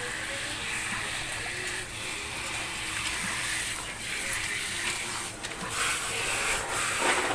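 Water spraying from a garden hose pistol nozzle on a shower setting onto a dog's wet coat and a plastic mat while the shampoo is rinsed off: a steady hiss that shifts as the spray moves across the dog.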